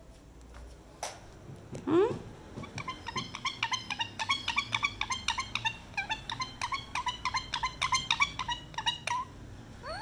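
Indian ringneck parakeet calling: one rising squawk about two seconds in, then a quick run of short, even chattering notes, several a second, for about six seconds.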